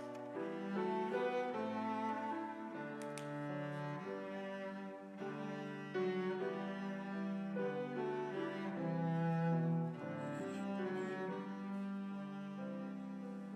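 Slow instrumental prelude music of long held notes moving from chord to chord.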